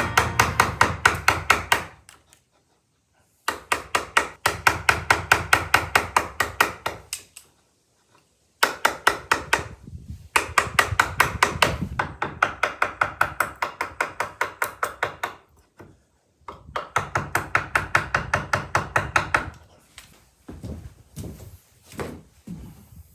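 Wooden mallet rapidly striking a chisel to chop a recess into a wooden door jamb, in runs of several seconds at about five blows a second with short pauses between; a few scattered knocks near the end.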